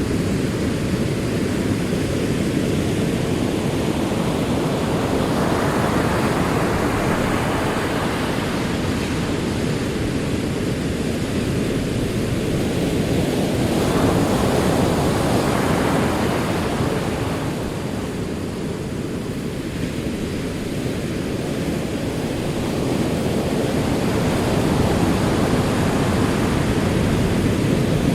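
Ocean waves rolling in and washing back: a steady roar of surf that swells and ebbs, with about three surges and a lull between them.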